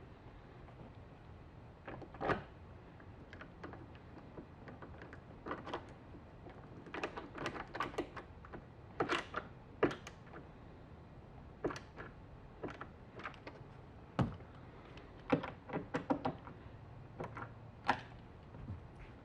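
Irregular, scattered clicks and knocks, some in quick clusters, of hands and tools working on a pickup's plastic sun visor and its mounting screws while it is fitted.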